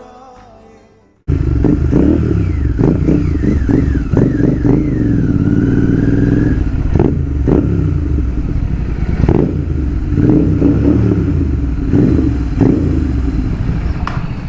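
Royal Enfield GT650's parallel-twin engine running loud through an open exhaust with the DB killer removed, revved in repeated surges. It starts suddenly about a second in.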